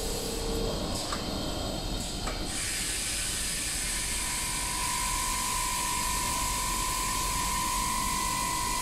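Glass CNC drilling machine at work on a glass sheet: coolant water spraying at the drill heads, a hiss that swells about two and a half seconds in. About a second later a steady whine from the drill spindles joins it and holds.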